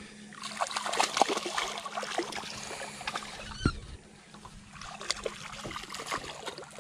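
A small hooked fish splashing at the water's surface beside the boat as it is reeled in on a spinning rod, heard as scattered splashes and ticks. A single thump comes about three and a half seconds in.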